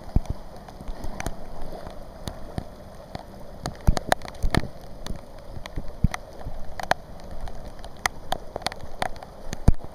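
Heavy rain falling on flooded pavement: a steady hiss with many irregular sharp taps of drops striking close by.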